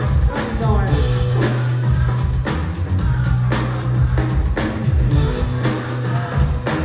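A live band playing a hip-hop groove, with a heavy bass line in held notes and a drum kit keeping the beat.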